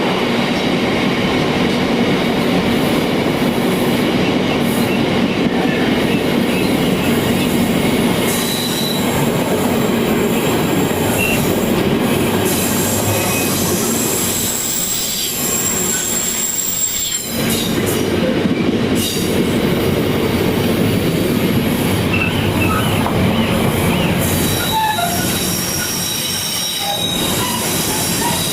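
Freight train passing close by: a continuous loud rumble of wagons running over the rails, with high-pitched wheel squeals coming and going.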